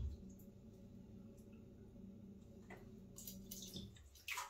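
Small water splashes and drips in a bathtub as a floating sponge fishing lure is moved about in the water, a few short ones in the last second and a half, over a faint steady low hum.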